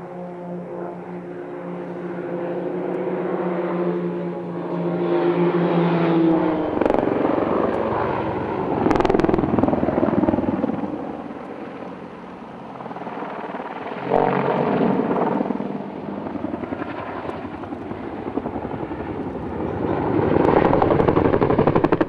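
Propeller aerobatic aircraft engines droning with a steady note that rises slightly, then military helicopters flying past with rotor chop. Near the end comes the rapid, loud blade beat of a twin-rotor Chinook.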